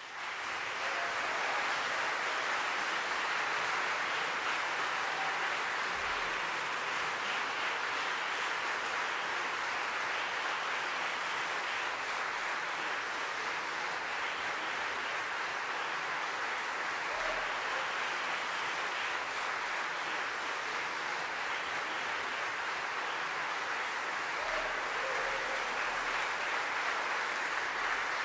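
Large concert-hall audience breaking into applause, which swells within the first second and then holds steady.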